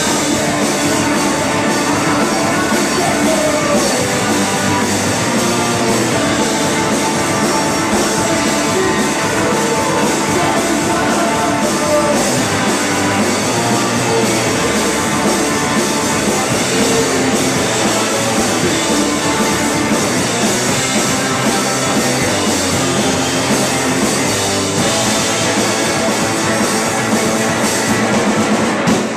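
Live rock band playing loud and without a break: electric guitar, electric bass and a drum kit with cymbals.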